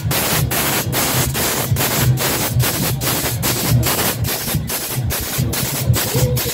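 Junkanoo band playing: goatskin drums pounding under a dense, loud wash of cowbells, with a steady beat of a little over two a second.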